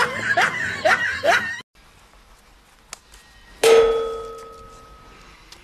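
A woman giggling and squealing in a high voice, cut off abruptly about a second and a half in. Then, a little past the middle, a single sharp metallic ding that rings and fades away over about a second and a half.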